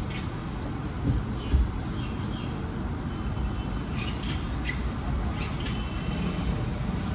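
Steady low traffic rumble with short bird chirps scattered through, and two dull thumps about a second and a half in.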